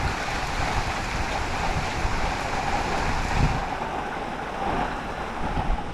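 Rain hitting a metal patio roof: a steady, dense patter.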